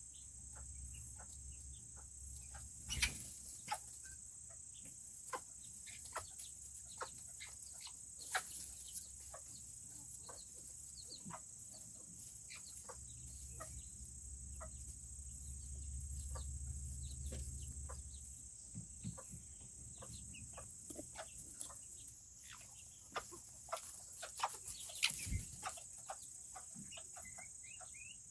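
Serama bantam chickens clucking softly, mixed with many scattered sharp clicks and taps. A steady high-pitched hum runs underneath, and a low rumble fades out about two-thirds of the way through.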